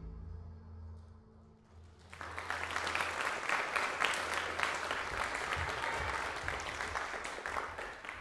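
The music's last low note fades out, and about two seconds in an audience starts applauding, a dense clapping that carries on.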